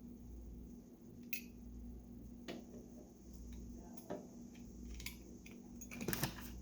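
Scattered small clicks and short scrapes of a knife working dirt and grime out of a brass steam whistle part, with a cluster of louder scrapes near the end. A steady low hum runs underneath.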